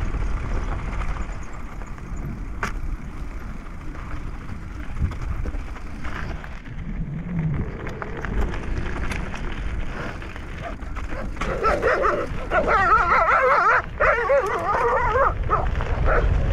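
Dogs whining and yelping: several overlapping, wavering cries that grow loud over the last five seconds, above a steady low rumble.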